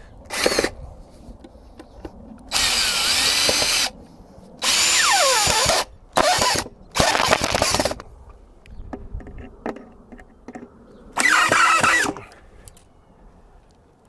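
Power drill driving wood screws through a wooden birdhouse's back into a wall, in about six bursts of under half a second to just over a second, its motor pitch shifting within each run.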